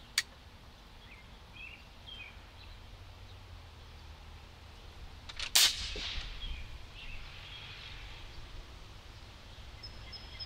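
A single shot from a .257 Texan big-bore PCP air rifle about five and a half seconds in: one sharp crack with a short ringing tail. A light click sounds right at the start.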